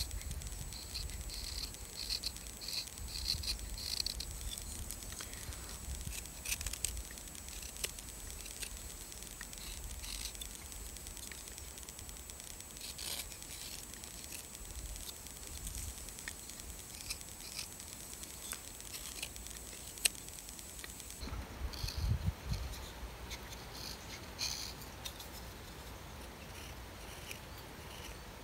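Small carving knife whittling wood: a string of short scraping cuts and light clicks as thin shavings come off the figure.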